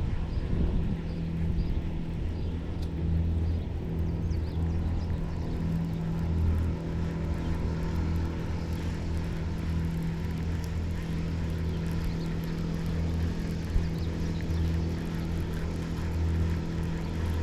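An engine running steadily: a low droning hum that swells and fades slightly.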